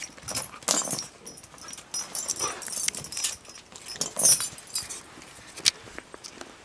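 Small shaggy dog on a chain giving short, irregular yaps as it jumps for a pear held above it, its metal chain clinking and rattling. It quietens near the end.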